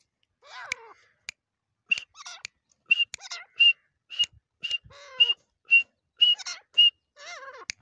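A female teetar (partridge) calling: a quick run of short whistled notes, roughly two a second. Each note is a sharp high pip with a falling slur beneath it.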